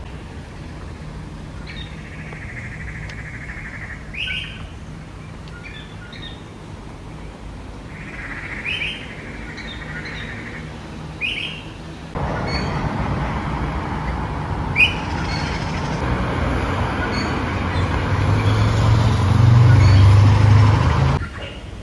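Birds give a few single short chirps over quiet outdoor ambience. About twelve seconds in, the steady noise of road traffic takes over: cars passing on a multi-lane road, louder near the end with a low engine hum, then cutting off suddenly.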